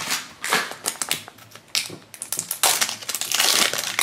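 Crinkly plastic wrapper being torn and pulled off a small plastic blind-box capsule. It makes a run of crackles and sharp clicks, busiest in the second half.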